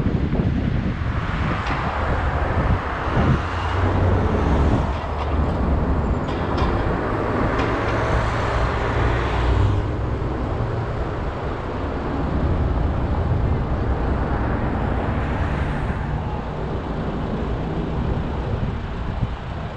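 A car driving through city traffic: a steady low rumble of engine and tyres on the road. The road noise swells over several seconds, drops off sharply about ten seconds in, then swells again briefly.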